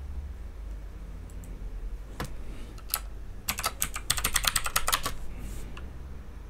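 Computer keyboard keys being typed as a password is entered: two single keystrokes, then a quick run of keys from about three and a half to five seconds in. A low steady hum lies underneath.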